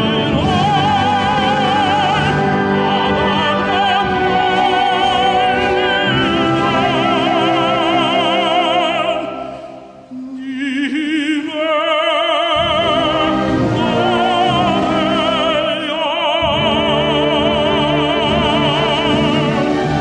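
Classical tenor singing a Korean art song with wide vibrato over instrumental accompaniment, with a brief break between phrases about halfway through.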